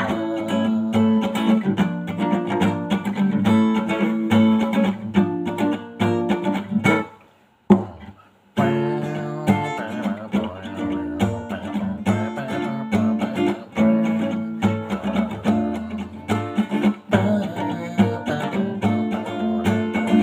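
Acoustic guitar played solo, a continuous instrumental passage of strummed and plucked chords. It breaks off briefly about seven seconds in and starts again a second or so later.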